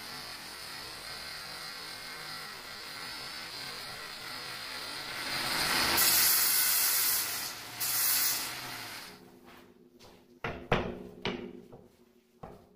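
Angle grinder cutting a granite strip, a steady hiss that grows louder about halfway through and stops near three-quarters of the way. Then a few sharp knocks as granite pieces are set down on the countertop.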